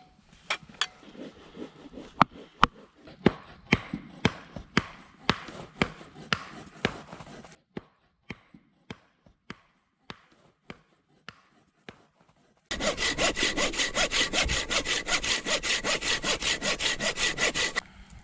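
A saw cutting through wood in fast, even strokes for about five seconds in the second half. Before it come sharp, irregular knocks and clicks of wood being handled.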